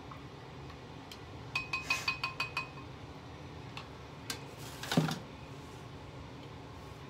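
A utensil tapping a glass cup or bowl: about eight quick, ringing clinks in a row. A single louder knock with a dull thud follows about five seconds in.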